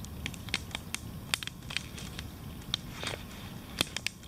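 Wood campfire crackling, with irregular sharp pops and snaps over a low steady rush.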